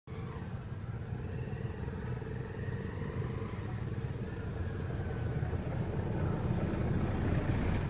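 Steady low engine rumble with a faint steady hum, slowly growing louder toward the end.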